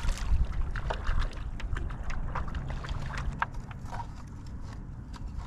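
Sounds on a fishing kayak on the water: a steady low rumble of wind and water on the microphone, with scattered light clicks and knocks.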